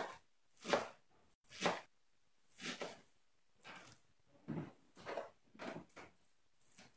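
Kitchen knife chopping fresh spinach on a plastic cutting board: separate chops about a second apart, coming quicker, about two a second, in the second half.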